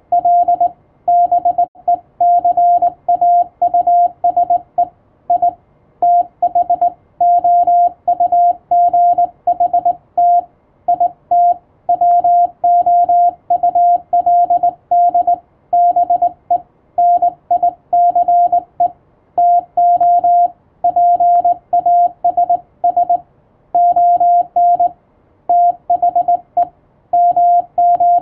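Morse code (CW): a single steady beep keyed on and off in dots and dashes, with short gaps between characters and longer gaps between words, sending continuously.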